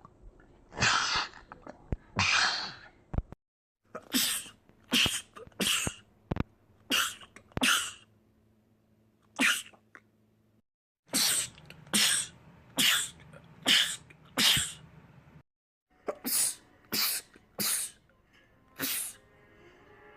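Men sneezing in rapid fits, sharp sneezes following each other about a second apart. Several separate fits are heard, split by short gaps of dead silence.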